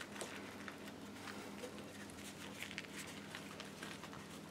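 Faint, soft rustling and small taps of a filled flour tortilla being folded and rolled into a burrito by hand on a plate.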